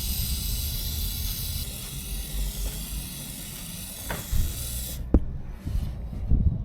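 Aerosol chain lube hissing steadily as it is sprayed onto a motorcycle drive chain, cutting off suddenly about five seconds in; a few dull knocks follow.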